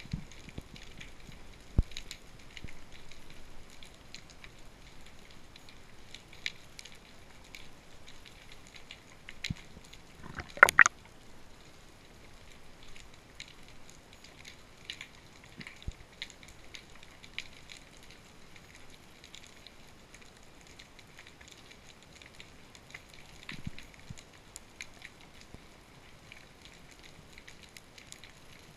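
Underwater sound heard through a camera housing: a faint hiss with scattered short clicks and crackles, and one sharp, much louder double knock about eleven seconds in.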